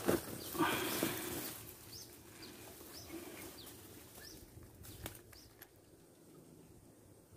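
A plastic bag and dry grass rustle and crackle as they are handled, loudest in the first second and a half, then fading to faint rustling. Short high chirps sound at intervals throughout.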